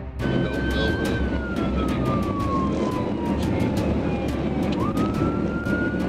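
Police car siren wailing, heard from inside the pursuing patrol car: its pitch holds, falls slowly, then climbs quickly near the end. Steady road and engine noise from the car at high speed runs underneath.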